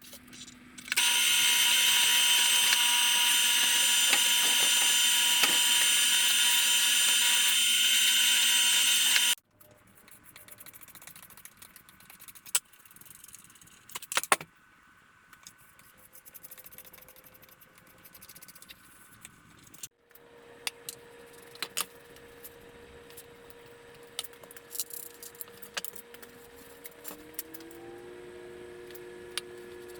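A power drill runs loudly and steadily for about eight seconds, drilling holes in the wooden jig for the new studs, then stops abruptly. Clicks and knocks of parts and hardware being handled follow. Near the end a faint steady hum is joined by a second tone that rises and then holds.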